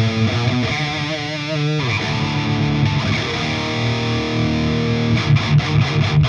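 Heavy metal guitar music: a distorted electric guitar through a Friedman BE-OD overdrive pedal. Held notes with wide vibrato come about a second in, and a run of about five sharp accented hits comes near the end.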